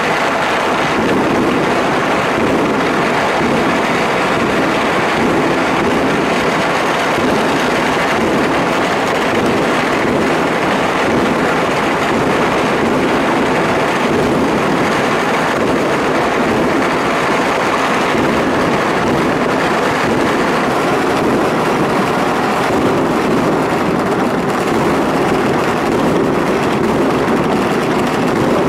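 Massed firecrackers and fireworks going off all across the city at once, blending into a steady, dense crackling din in which no single bang stands out.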